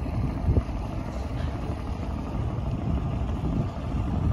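Steady low rumble of a moving passenger riverboat, with wind buffeting the microphone in uneven gusts.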